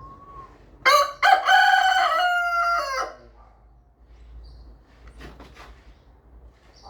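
Rooster crowing once: a loud cock-a-doodle-doo lasting about two seconds, starting about a second in with a short first note, then a long held note that falls in pitch at the end.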